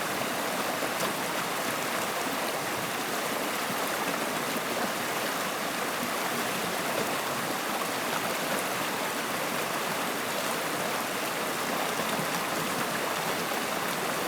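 Stream water flowing steadily, an even, unbroken rushing of water.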